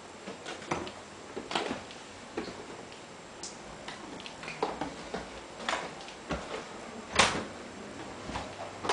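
Irregular knocks and clicks in a small room, about a dozen over several seconds, the loudest a sharp knock about seven seconds in.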